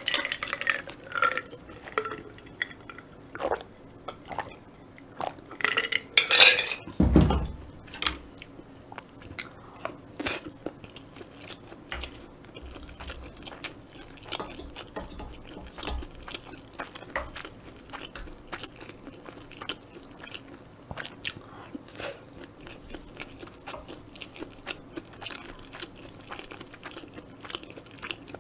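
Close-miked chewing of fried rice, with many small wet mouth clicks, and a wooden spoon scraping and tapping a stainless steel pan between mouthfuls. A few louder knocks fall in the first seven seconds, the heaviest a low thump about seven seconds in.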